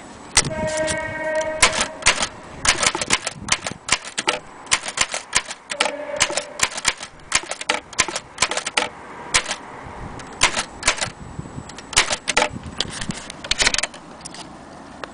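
Imperial Companion portable typewriter being typed on: an irregular run of sharp key strikes, some in quick bursts, with a short ringing tone near the start and again about six seconds in.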